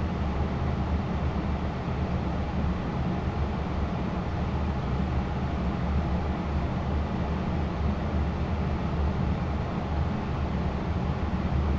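Steady flight-deck noise of a Boeing 777-300ER in descent: an even rushing hiss over a low hum, with no changes.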